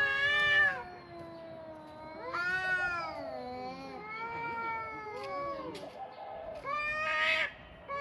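Two cats yowling at each other: long, drawn-out, wavering meows that overlap, one voice lower and one higher. The louder calls come at the start, about two and a half seconds in, and about seven seconds in.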